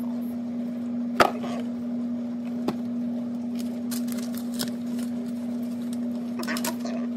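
A steady low hum under light handling noise from a cardboard camera box and its papers. A sharp click comes about a second in, a softer one about a second and a half later, and faint rustles and knocks follow.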